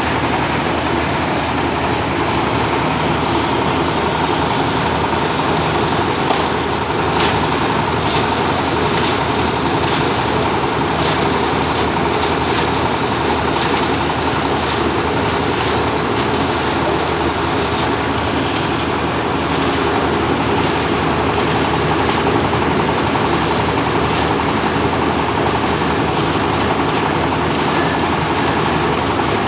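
Plastic packaging shredder running steadily: a continuous mechanical din from its motor and cutters with a faint steady whine, and light ticks coming and going between about seven and sixteen seconds in.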